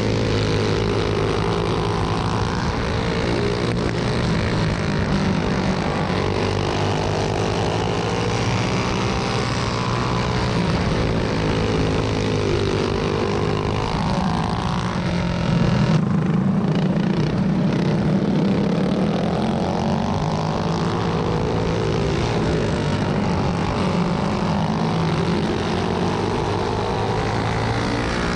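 Racing go-kart engine at race pace, heard onboard, its pitch rising and falling in long sweeps several times as the throttle comes on and off through the laps.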